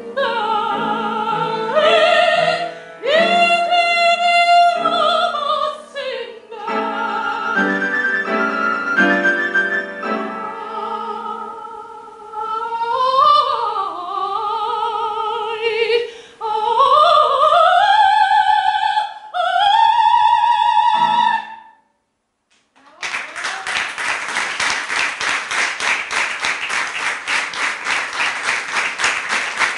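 Classical soprano singing with piano accompaniment: long held high notes and sliding phrases, ending with a final held note about 21 seconds in. After a brief silence, the audience applauds.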